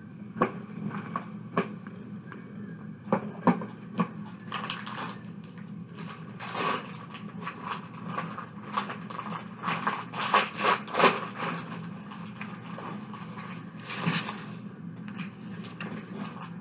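Plastic toy trucks, a shovel and rocks handled in a bin of sensory sand: irregular clicks and knocks with bursts of scraping, busiest around the middle, over a steady low hum.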